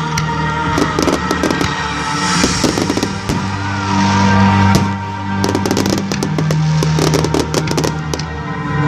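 Fireworks display: a dense, irregular run of cracks and bangs from bursting shells, over loud music with held low notes.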